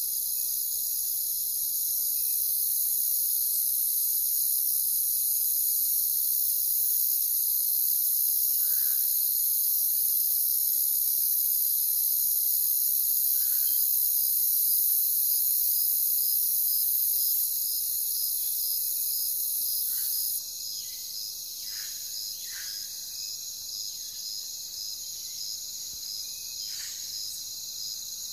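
Steady chorus of chirping insects with an even, rapid pulse running through it. A higher, hissing part of the chorus cuts off abruptly about two-thirds of the way through, and a few faint short calls sound lower down.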